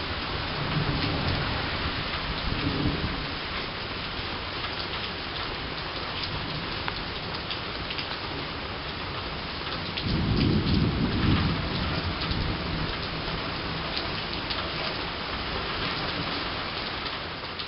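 Rain falling steadily in a summer thunderstorm, with individual drops ticking close by. Thunder rumbles low in the first few seconds and again more strongly for about two seconds near the middle.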